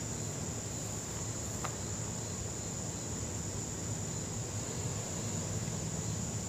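Crickets trilling steadily in one continuous high note, over a low steady hum.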